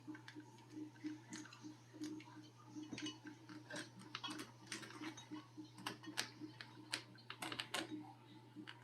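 Light, irregular clicking and ticking, several taps a second, as a borescope camera cable is pushed and worked through a dishwasher's corrugated plastic drain hose, over a steady low hum.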